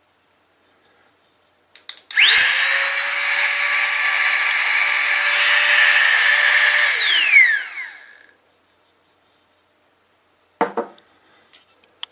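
Flextail Tiny Pump 2 mini electric air pump switched on with a click, its fan running with a steady high whine for about five seconds, then winding down in falling pitch as it is switched off. A short knock follows near the end.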